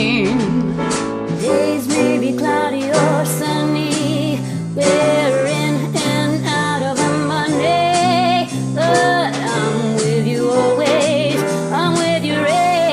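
Jazz band playing a ballad, with a walking bass stepping about two notes a second under a melody that wavers with vibrato.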